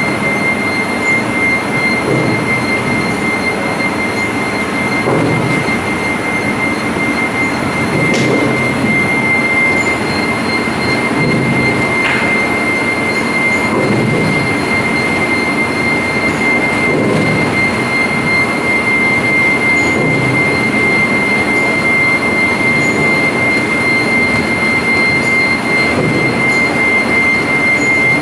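Sweet corn husking line running: steady mechanical noise from the conveyor belts and husking rollers, with a constant high-pitched whine.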